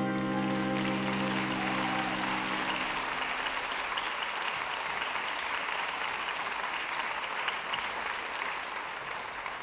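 Audience applauding steadily, over the last held chord of the music dying away in the first three seconds; the applause thins out near the end.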